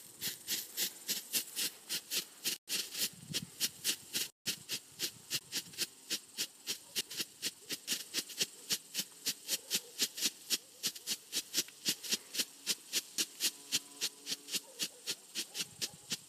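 A pyrotechnic strobe flare (a 90-second 'stroboscope') burning on the ground, giving a sharp hissing crackle with each flash in a steady rhythm of about three a second.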